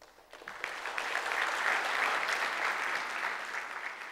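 Audience applauding: dense clapping that swells over about the first second and begins to thin out near the end.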